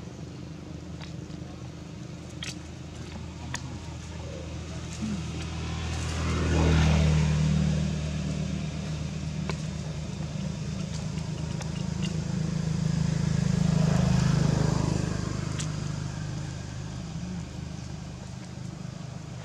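Two motor vehicles passing by one after the other, their engine hum swelling and fading about seven seconds in and again about fourteen seconds in, over a steady low engine drone, with a few faint clicks.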